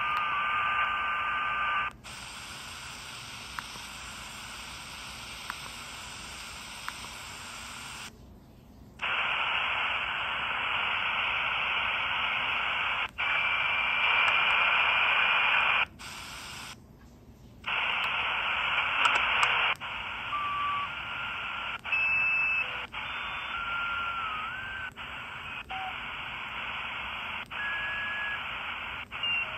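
4732 miniature shortwave radio giving out static hiss, no clear station coming through: poor reception. The hiss jumps in level and drops out briefly a couple of times as the tuning changes, with short steady whistles at different pitches and a few clicks.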